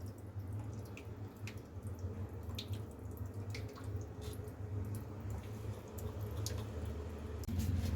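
A steady low hum with scattered light clicks and drips at irregular intervals.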